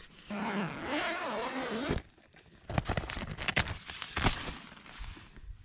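Tent door zip being pulled open: a quick run of sharp rasping strokes about three seconds in, the loudest sound. Before it comes a drawn-out, wavering voice sound from a man stretching awake.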